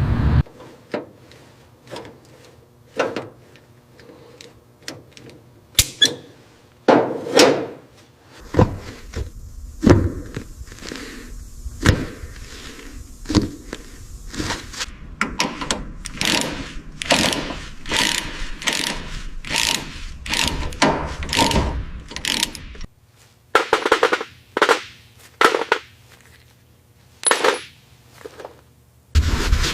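Hand tools at work in a workshop: irregular knocks, clicks and scrapes. A busier run of quick taps comes in the middle, and the sounds thin out into a few separate knocks near the end.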